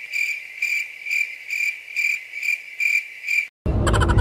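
Cricket chirping sound effect: a high, pulsing chirp repeating about three times a second, starting and stopping abruptly with the car's own sound cut out. It is the usual 'crickets' gag for an awkward silence.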